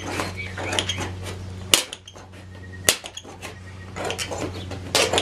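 Tin snips cutting through thin sheet-metal trailer siding: a run of sharp metallic snips and crinkles, with three louder clacks, about two seconds in, about three seconds in, and near the end.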